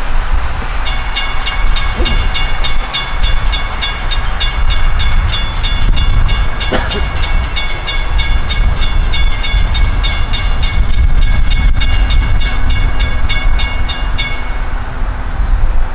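Grade-crossing warning bell ringing in rapid, even strokes, about three or four a second, over a steady low rumble; the bell stops about a second and a half before the end.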